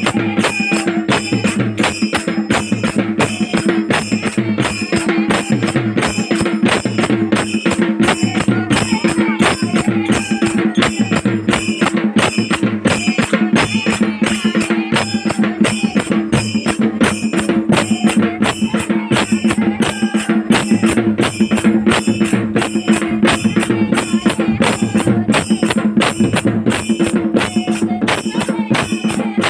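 Folk music: drums and jingling percussion keep a fast, even beat over a steady held drone.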